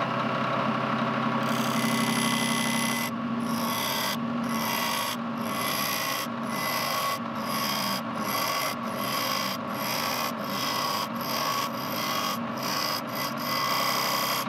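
Wood lathe running steadily while a pointed cutting tool scrapes fine line-holding grooves into a spinning hickory reel spool. The high scraping hiss starts about a second and a half in and breaks off briefly about once or twice a second, over the lathe's steady hum.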